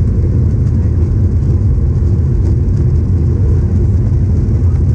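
Steady cabin noise inside a Boeing 737-800 in flight: an even, loud low rumble of engines and airflow that does not change.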